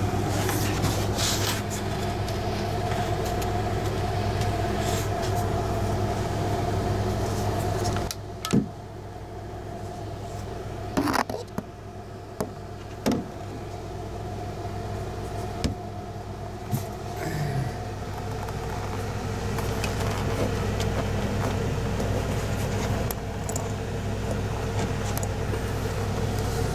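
A steady mechanical hum with constant low tones. It drops somewhat about eight seconds in and builds back up later. A few sharp clicks and knocks come through in the middle.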